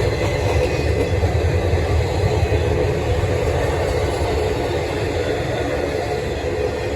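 A train passing by, its wheels on the rails making a steady rumble.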